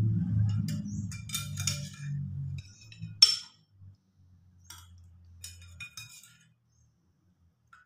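A metal spoon clinking against ceramic bowls and plates as soup and chicken pieces are served onto rice: a handful of short clinks, the loudest about three seconds in. A low hum sounds underneath at first and fades out within the first few seconds.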